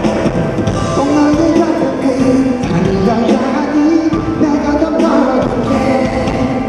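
Live pop music in concert: a man singing into a headset microphone over loud backing music with a steady beat.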